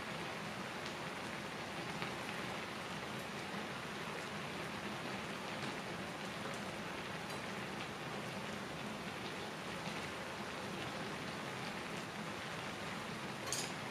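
Udon broth boiling in a thin aluminium pan on a portable gas burner: steady bubbling and crackling with the hiss of the flame underneath. A brief sharp click comes near the end.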